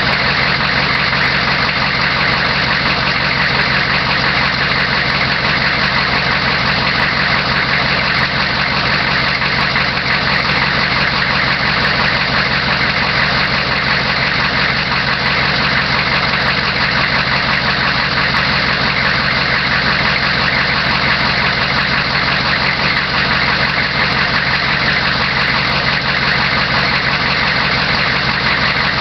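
1993 Chevrolet 2500's 6.5-litre turbo diesel V8 idling steadily with a fast, even pulse. It is the truck's original engine, with 435,000 km on it.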